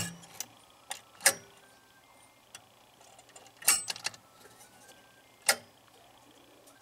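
Electromechanical pinball score motor turned slowly by hand, its cam-driven leaf switches snapping over in a few sharp, irregular clicks as the contacts transfer at the home position.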